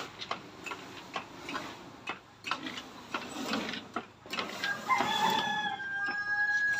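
Crackling and ticking of small flames burning on a wooden slatted floor that is being flame-treated with a backpack torch. About five seconds in, a long, steady-pitched animal call sounds for about two seconds.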